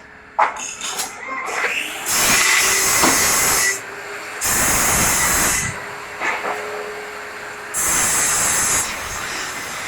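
Hissing in three bursts of about a second each, with a few sharp clicks, including one near the start.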